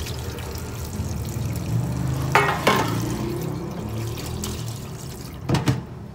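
Tap water running over fish in a plastic colander in a stainless-steel sink, as the fish are rinsed and left to drain. The colander knocks against the sink a few times, about two and a half seconds in and again near the end.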